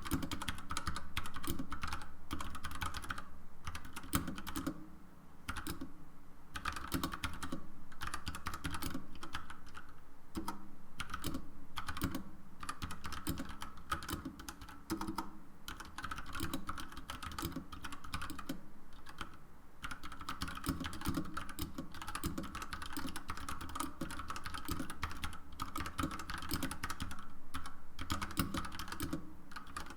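Typing on a mechanical keyboard with Gateron brown switches and textured vintage-style keycaps: rapid, continuous key clacks, with a few brief slowdowns.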